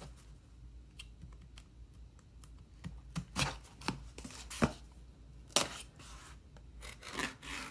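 A cardboard mailer being handled: faint taps at first, then a handful of sharp cardboard knocks and scrapes as it is picked up and turned over, with some rustling near the end.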